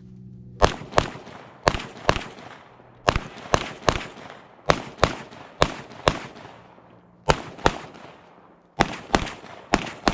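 Rapid gunfire from a shooter running a timed match stage: about seventeen sharp shots, fired in quick pairs and short strings, with brief pauses between target groups.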